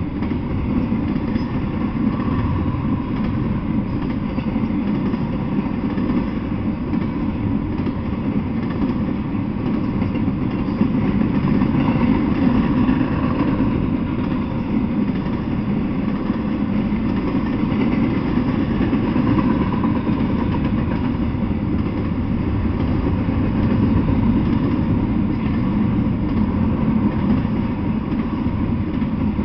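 Double-stack intermodal freight train rolling past: a steady low rumble of wheels on rail that swells and eases a little as the cars go by.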